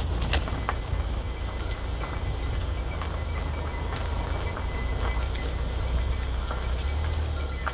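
A herd of goats walking on a dirt road: scattered hoof clicks on the gravel over the steady low rumble of a car's engine running.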